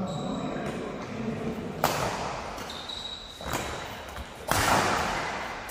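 Badminton rackets striking a shuttlecock during a rally, three sharp hits about a second apart, each echoing in the large hall. There are also two short high squeaks.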